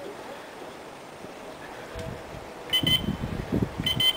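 Two short electronic beeps from a carp-rod bite alarm, about a second apart, over rustling and handling noise.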